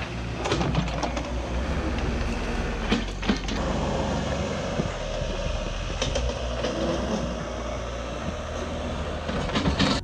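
Case backhoe loader at work: its diesel engine running steadily under load, with scattered sharp clanks and knocks from the bucket and boom as it digs out roots and dirt.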